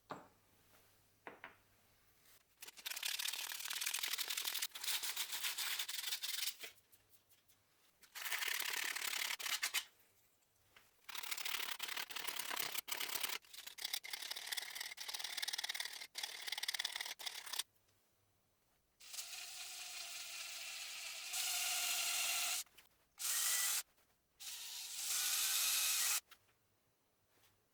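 Sanding wood on a woodturning piece, in several bursts of a few seconds each with short pauses between them. A faint steady tone runs under one burst about two-thirds of the way through.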